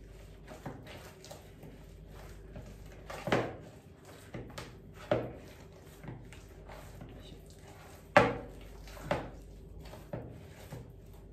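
Pide dough being kneaded by hand in a large mixing bowl: a quiet working sound broken by several dull knocks as the dough is pushed and the bowl shifts, the loudest about eight seconds in.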